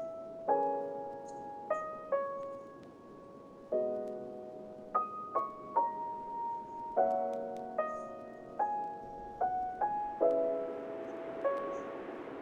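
Slow, gentle piano music: single notes and soft chords struck about once or twice a second, each left to ring and fade.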